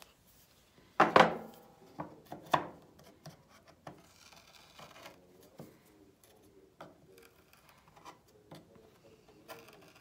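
Hand chisel paring and scraping MDF, a run of small scrapes and clicks. A sharp knock comes about a second in and another about a second and a half later.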